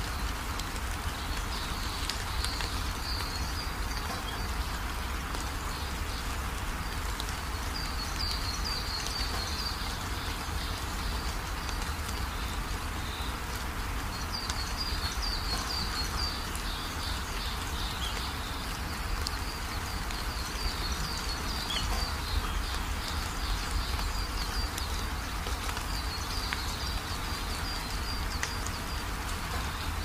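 Steady rain falling, with a low steady rumble underneath. Bursts of rapid, high chirping come and go several times through it.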